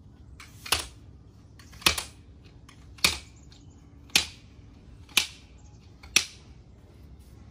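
Acrohome 2.6 m aluminium telescopic ladder being collapsed section by section: six sharp metallic clacks, about one a second, as each released rung section drops and closes onto the one below.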